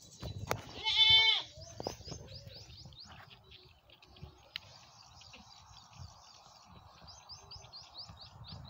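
A goat bleats once, about a second in: a loud call of about half a second that drops in pitch at its end. Small birds chirp faintly in quick runs of short notes in the background.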